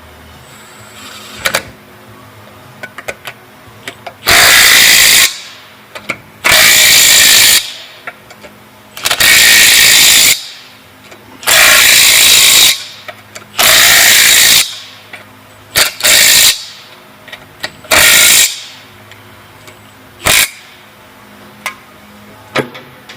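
Impact wrench spinning lug nuts onto a wheel, in about six runs of a second or so each with a few short blips between them.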